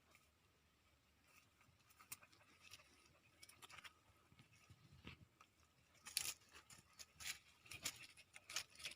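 Near silence broken by faint, scattered crackles and rustles, which come more often from about six seconds in.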